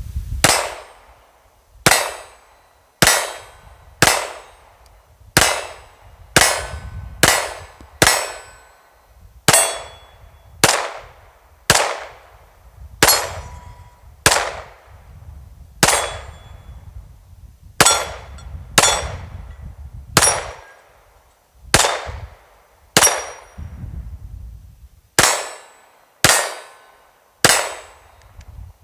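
Springfield Armory XD-M Elite 4.5 OSP 9mm pistol being fired at a steady slow pace, about twenty-two shots roughly a second or so apart, each with a short ringing tail.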